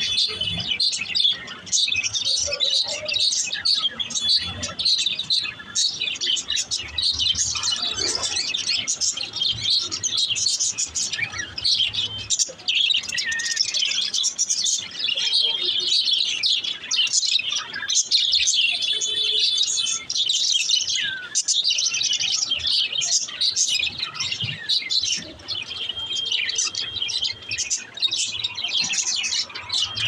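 Several budgerigars chirping and chattering without pause, a dense overlapping stream of quick high notes.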